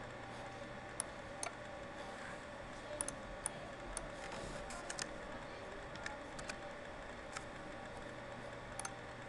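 Computer mouse clicks and a few keyboard keystrokes: about a dozen sharp, separate clicks spread over several seconds, with a quick run of them near the middle, over a faint steady electrical hum.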